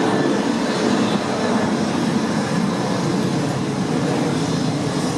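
Boeing 737-700's CFM56-7B turbofan engines at takeoff thrust: loud, steady jet engine noise with faint steady whining tones above it, easing slightly near the end.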